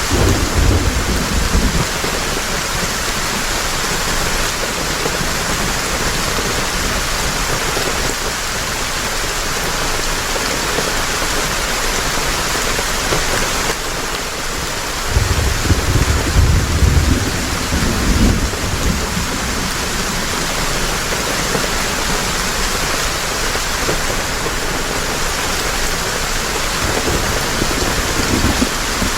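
Heavy rain falling in a steady, even hiss, with low rolls of thunder rumbling briefly at the start and again for a few seconds about halfway through.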